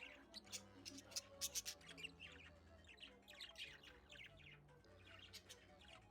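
Budgerigars chirping and chattering in quick, sharp calls, busiest about a second and a half in and again past the middle, over faint held low notes from background music.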